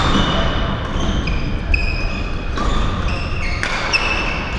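Badminton hall sounds: several sharp knocks of racquets hitting shuttlecocks, with short, high squeaks of court shoes on the floor, over a steady low hall rumble.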